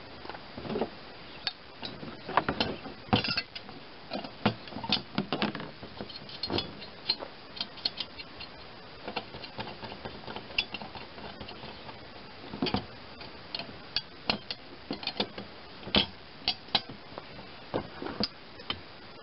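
Steel wrenches clicking and clinking on a nut and threaded rod as the nut is turned down by hand: irregular sharp clicks in quick runs with short pauses.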